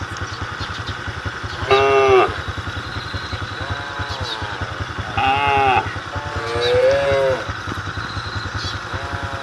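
Cattle calling: about five short calls, each under a second, several rising then falling in pitch. An engine idles steadily underneath with a fast low pulse.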